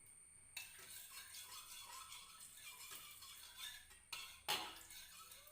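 Faint kitchen clatter: a cooking pan and utensils rattling and scraping, with a louder knock about four and a half seconds in.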